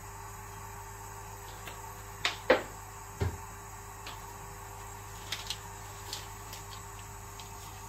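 Kitchen handling sounds over a steady electrical hum: two sharp clicks and a low knock between two and three and a half seconds in, then a few lighter ticks.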